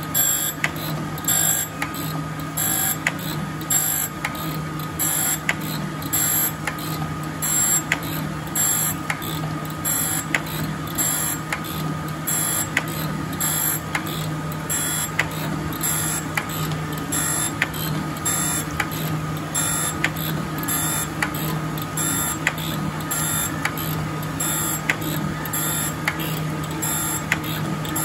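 Jones & Shipman 1400 surface grinder running with flood coolant, its wheel grinding an A36 steel block on a one-thousandth-inch pass. Steady motor hum and whine, with a hiss and tick repeating in an even rhythm as the table feeds back and forth under the wheel.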